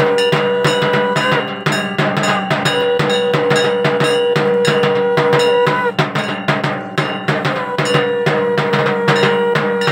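Rapid, dense drumming with clanging metal bells. Over it comes a long held tone three times, each about three seconds, dipping in pitch as it ends.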